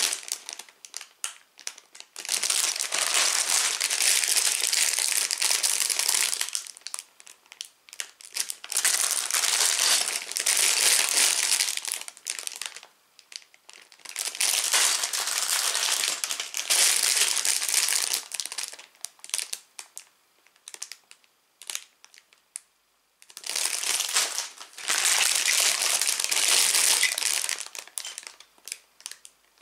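Sealed clear plastic bags of Lego pieces crinkling as they are picked up and handled, in four long stretches with short pauses between them and a few scattered light clicks in the pauses.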